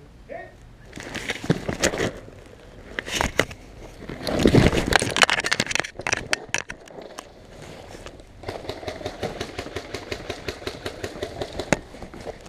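Airsoft gunfire: rapid strings of sharp clicks. The longest string comes in the second half, where regular clicks run over a steady whirring tone, like an electric airsoft rifle firing full-auto. A louder rumbling, rustling stretch comes about four to six seconds in.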